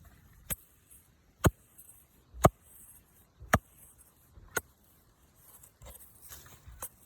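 A digging tool striking the ground in a steady rhythm: five sharp knocks about a second apart, then a run of softer clicks and scrapes near the end.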